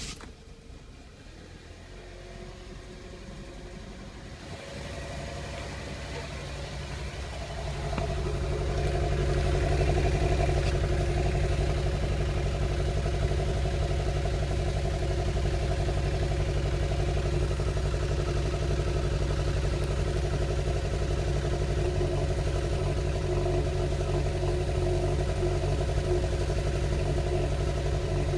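Engine running just after a start, with a noise at start-up that lasts about a minute. The sound builds gradually over the first eight seconds or so, then holds a steady drone.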